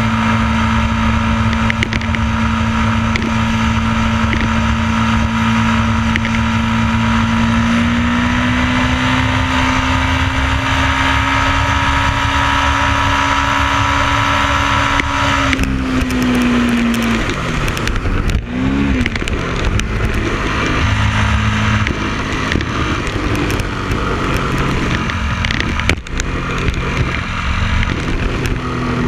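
Motorcycle engine running at a steady cruise with rushing wind noise. About halfway the engine note climbs slightly, then falls away sharply as the throttle is closed, and it runs lower and less evenly after that.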